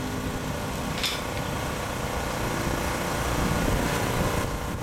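Steady low rumbling outdoor background noise, with a brief high hiss about a second in.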